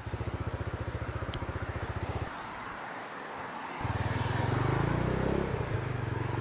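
Italika RT250 motorcycle's 250 cc engine idling with a fast, even putter, dropping back for about a second and a half, then revving with a rising pitch as the bike pulls away and keeps running.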